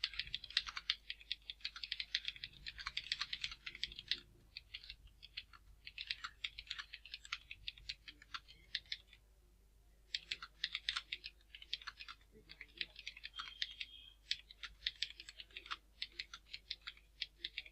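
Fast touch typing on a computer keyboard: rapid runs of key clicks broken by brief pauses, the longest about nine seconds in.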